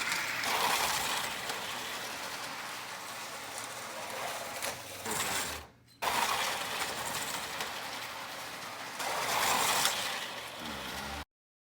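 Vintage Eldon 1:32 scale snowmobile slot cars running on their plastic track: small electric motors whirring with a mechanical rattle and clatter. The sound drops out briefly about halfway, swells again near the end, and then stops abruptly.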